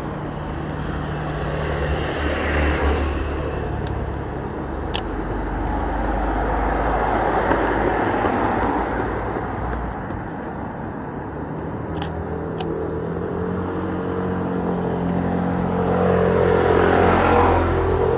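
City road traffic: vehicle engines running with a steady hum, and several vehicles passing by. A few short sharp clicks stand out, two in the first half and two close together about twelve seconds in.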